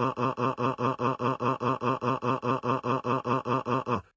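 A text-to-speech cartoon voice repeats one short, falling syllable very fast, about six times a second, in a perfectly even, machine-like stutter. It reads as a cartoon character sobbing. It cuts off just before the end.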